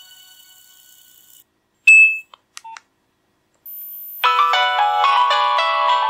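Nokia 2310 mobile phone: the last notes of its startup tune die away, a few short electronic beeps sound about two seconds in, then a ringtone melody with several notes at once starts a little after four seconds in.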